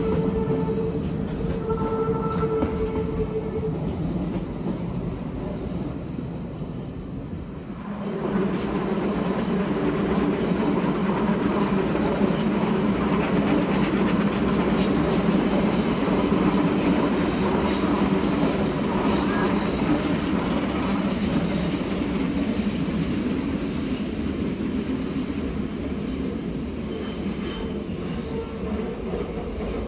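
An ICE high-speed electric train passing with a steady whine. From about eight seconds in, a louder rolling rumble of train wheels on the tracks, with high-pitched wheel squeal through the middle part.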